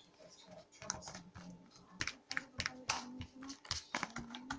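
Homemade glue-and-Tide slime being squeezed and kneaded by hand, making quick, irregular wet clicks and pops.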